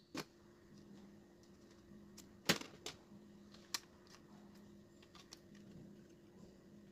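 A few sharp clicks and taps from a TV circuit board being handled, the loudest about two and a half seconds in, over a faint steady hum.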